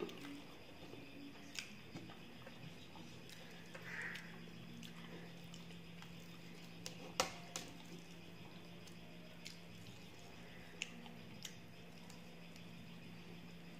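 Quiet hand-eating sounds: fingers mixing rice and fried fish on a metal plate, with soft chewing and scattered small clicks and taps, the sharpest about 7 s in. A steady low hum runs underneath.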